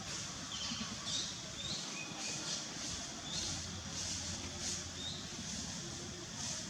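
Several short, high chirping calls, a few rising in pitch, over repeated high hissy pulses and a steady low hum.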